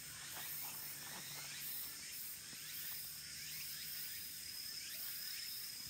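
Insects calling in an evening chorus: a steady high buzz with quick chirps repeating over it.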